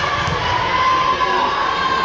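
Spectators cheering and shouting in a gymnasium, a mass of voices with some held, drawn-out yells.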